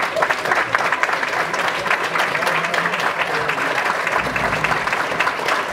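Crowd in a large hall applauding, with dense, steady clapping.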